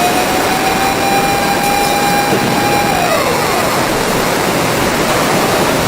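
Loud, steady rushing noise with a wailing siren tone over it; the siren holds high, then falls away and fades about three seconds in.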